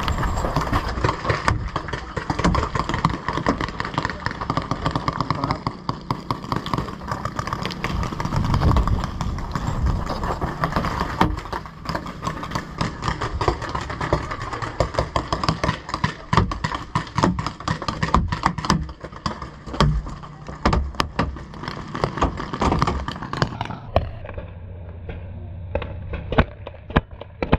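Paintball markers firing, many sharp pops in irregular strings, over a steady rushing noise that drops away a little after twenty seconds in.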